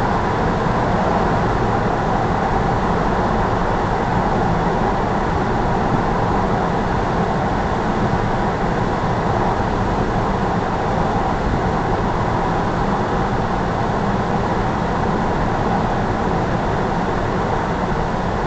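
Steady road noise of a car cruising at speed, tyre and engine noise heard from inside the cabin.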